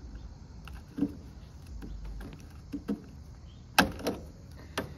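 Snips cutting through a copper refrigerant line beside a heat-pump reversing valve: several sharp clicks and cracks as the jaws bite and the tube gives, the loudest a little before the end.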